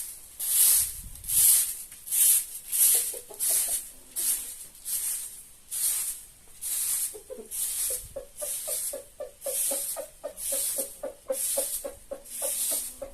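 Broom sweeping the yard in steady swishing strokes, about one every three-quarters of a second. From about two-thirds of the way in, a chicken clucks in quick repeated notes over the sweeping.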